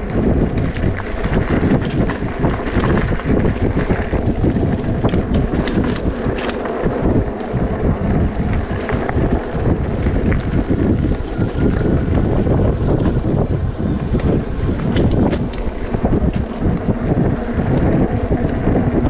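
Strong wind buffeting the microphone of a rider on a moving e-bike, a steady rumbling roar, with a few short knocks and rattles scattered through it.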